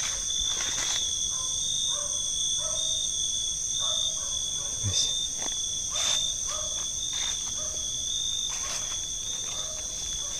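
A night insect chorus of crickets trilling steadily at several high pitches, with short lower chirps scattered through it and occasional brief crackles, like leaves or footsteps underfoot.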